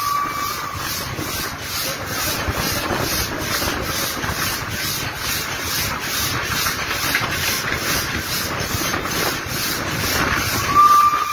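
Steam locomotive running, heard from beside its cab: steam hissing and running noise with an even, rhythmic beat. A steady whistle tone cuts off about half a second in, and another whistle starts just before the end.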